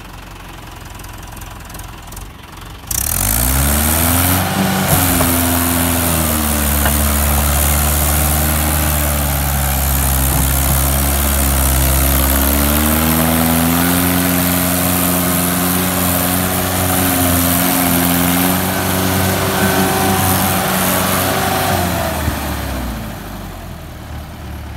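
Mahindra 575 DI XP Plus tractor's four-cylinder diesel engine revving hard under heavy load while hauling a loaded sand trolley. The engine jumps from a low run to full revs about three seconds in, sags and climbs again midway, and drops back near the end.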